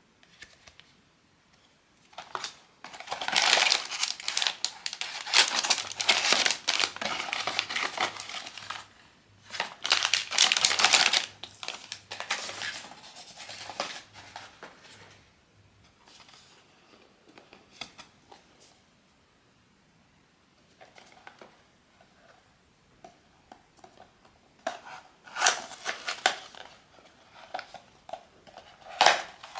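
Blind-box packaging being handled and torn open: plastic wrapping crinkling and tearing. A dense run of crinkling for several seconds is followed by quieter scattered rustles, and a few more sharp crinkles come near the end.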